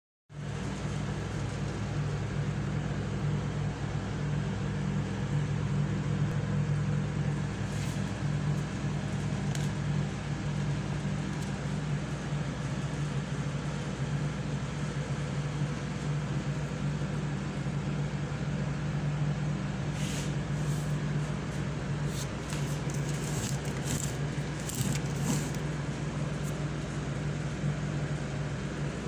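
Steady low droning hum, with a few light clicks and rustles, mostly about two-thirds of the way through.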